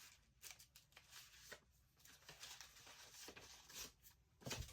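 Near silence with faint, scattered rustles and light taps of paper cash and envelopes being handled.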